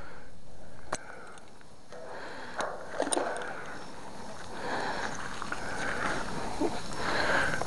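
Close handling noise as a magnet-fishing rope is worked by gloved hands on wooden bridge timbers: rustling and scraping, with a few sharp clicks about one, two and a half and three seconds in.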